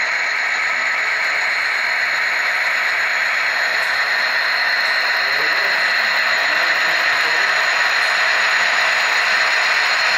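Steady rushing hiss with a thin high whine as an HO-scale model freight train rolls past on the track, growing slightly louder toward the end as its diesel locomotive models draw near.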